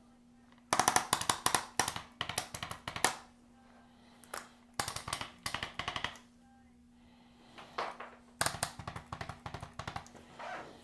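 Handheld percussive vibration instrument tapping rapidly on the patient's back, in three bursts of quick strikes with pauses between them.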